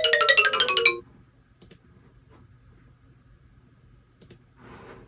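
A fast run of short, bell-like electronic notes stepping down in pitch, a comic descending jingle that ends about a second in. After it there is only faint room tone with a few small clicks and a soft hiss near the end.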